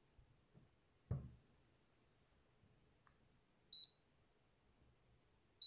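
Two short high beeps from the RunCam 5 action camera, about two seconds apart, confirming that it has read the settings QR code. A dull thump about a second in, the loudest sound.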